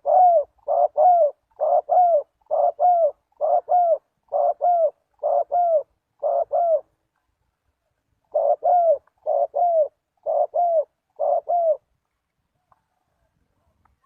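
Spotted dove cooing: paired coo notes repeated about once a second, a run of eight, a short pause, then five more.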